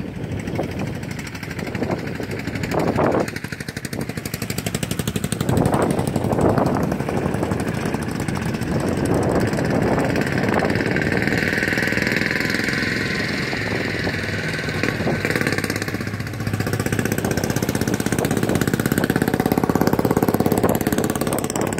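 A motor vehicle's engine running on the road nearby, mixed with wind buffeting the microphone.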